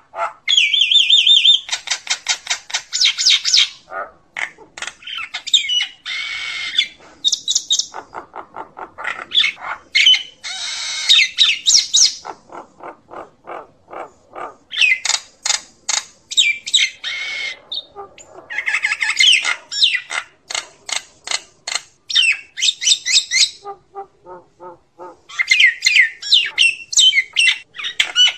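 Common myna calling its flock: bursts of quick, harsh, chattering and squawking notes repeated in fast runs, mixed with whistled and gurgling phrases. A few lower, croaking notes come about three-quarters of the way through.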